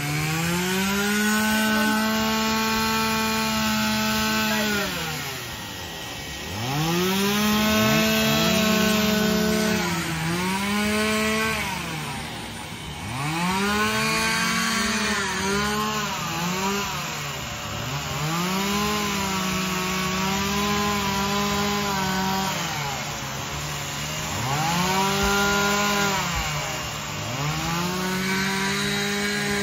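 Chainsaws cutting wood for carving, each repeatedly throttled up to full speed, held a few seconds, then let back down. This happens about eight times, sometimes with two saws running at once.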